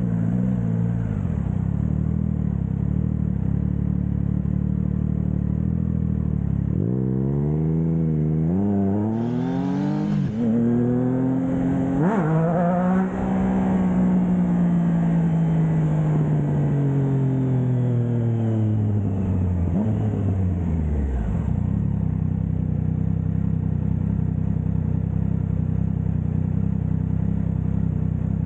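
Triumph Trident 660's inline three-cylinder engine through a Blackwidow 200mm aftermarket exhaust. It idles, then about seven seconds in pulls away, its pitch rising in steps with quick gear changes. A long falling note follows as it slows, and it settles back to a steady idle for the last several seconds.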